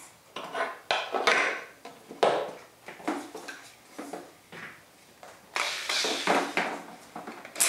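Metal hinge clamps being picked up and set down on a laminated board: a series of separate knocks and clinks with a scraping slide partway through and a sharp click near the end.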